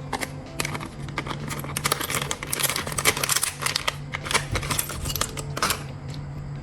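A dense run of sharp clicks and rustling, the sound of materials being handled, over a steady low hum.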